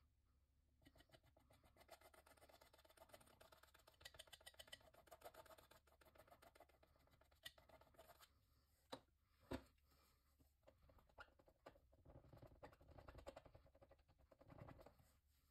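Faint scraping and scratching of a palette knife working acrylic paint on palette paper, with two sharp taps about nine seconds in. Softer rubbing follows near the end as a sponge wipes the palette.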